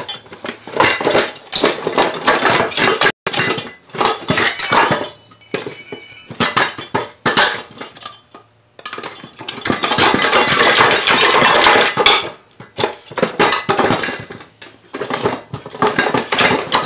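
Repeated metal clanks and clinks of a steel pry bar and tools against the case of a 2001 Mazda Tribute transmission being worked apart, with a dense run of clattering about ten seconds in.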